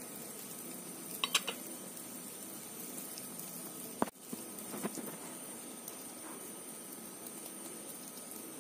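Faint steady sizzle of olive-oil-basted marinated chicken on a wire grill over glowing charcoal. A few light clicks about a second in and one sharp click about four seconds in.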